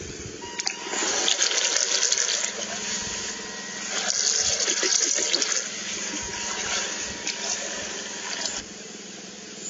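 Small radio-controlled speedboat running fast across the water: a hiss and splash of propeller spray over a steady electric-motor whine. It stops suddenly near the end.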